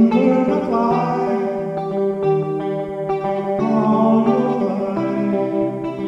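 Hollow-body electric guitar playing a melody.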